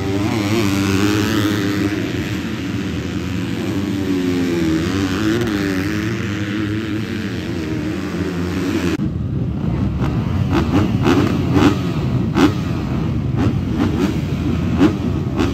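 Several motocross bikes racing, their engines rising and falling in pitch together. About nine seconds in the sound cuts to a rougher, lower engine rumble broken by short sharp cracks, from dirt bikes running at the starting gate.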